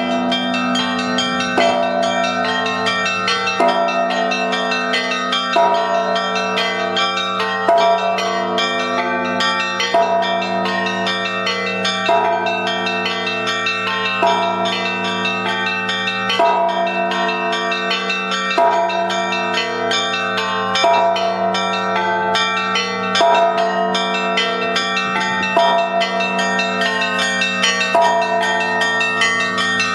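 Russian church bells rung together in a continuous peal. Small bells chime rapidly over the sustained hum of larger bells, and a heavier bell is struck about every two seconds.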